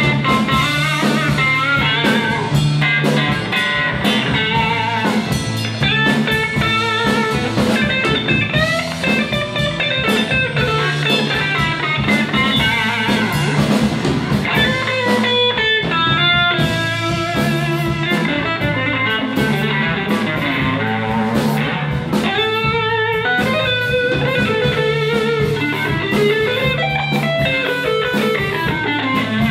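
Live blues band playing: electric lead guitar with bent notes over bass and drums.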